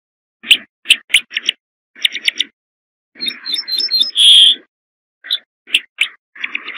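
Ortolan bunting singing: short, high chirps, then a phrase of quick repeated notes that ends in a longer, lower held note about four seconds in, then more single chirps and a short run of repeated notes near the end.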